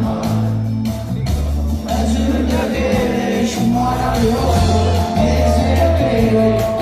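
Live band music heard from among the audience, with a steady beat and strong bass notes.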